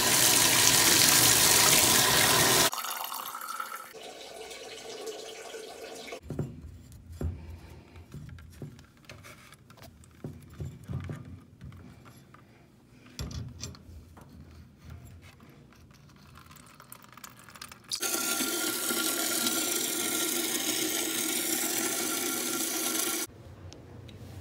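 Water running hard from a bathtub spout for about three seconds, then quiet clicks and handling of plumbing fittings, then water rushing steadily again for about five seconds before it cuts off suddenly.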